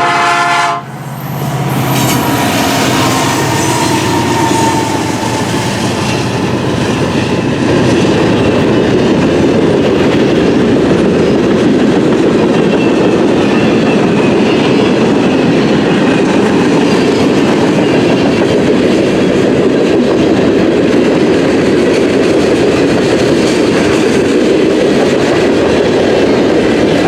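CN westbound freight train passing close, its cars rumbling steadily on the rails, louder from about eight seconds in. A horn blast cuts off in the first second.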